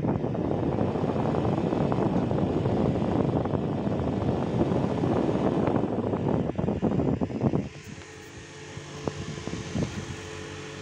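Diesel engine and hydraulics of a Tata Hitachi 200 Super Plus excavator heard from inside the cab, running loud with a dense mechanical noise. About three quarters of the way through the sound drops abruptly to a much quieter, steady hum.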